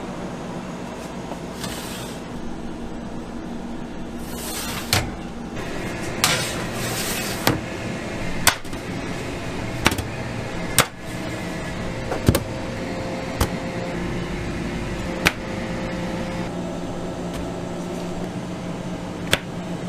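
Round metal cake tins knocking and clanking against a perforated steel baking tray, about ten sharp knocks one to two seconds apart, over a steady machine hum. A few brief rushing noises come in the first seven seconds.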